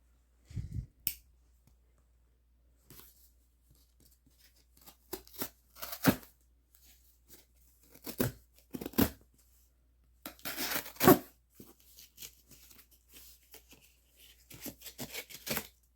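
Leatherman Freestyle multitool's partly serrated knife blade cutting through a piece of material in a series of short, irregular sawing and tearing strokes, the longest and loudest about two-thirds of the way through. A sharp click about a second in.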